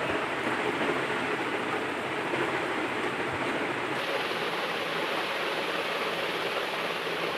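Steady background hiss with no distinct event, with no burp or voice heard.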